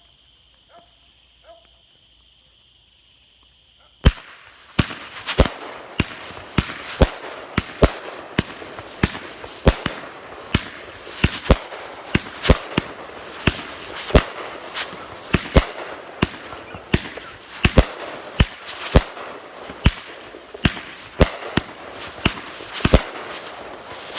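Crickets chirping steadily, then about four seconds in a 30-shot, 1-inch-tube 500-gram firework cake starts firing: a sharp report one or two times a second, with a continuous noise between the shots, until the end.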